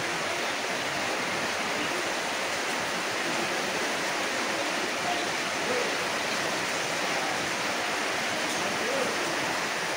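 Steady, even hiss of background noise, with a few faint short sounds about five and nine seconds in.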